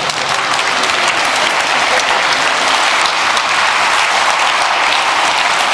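A lecture audience applauding, many hands clapping densely at a steady level.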